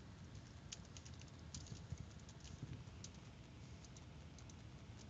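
Faint computer keyboard typing: an irregular run of soft key clicks over a low background hum and hiss.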